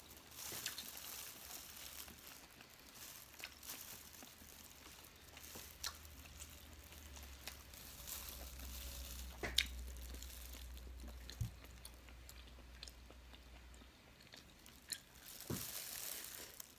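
Close-miked chewing of chewy soy-braised squid: soft wet mouth sounds with scattered small clicks and smacks.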